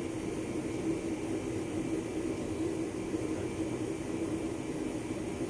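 A steady droning hum with a hiss over it, even in level throughout, with no distinct tool clicks or knocks.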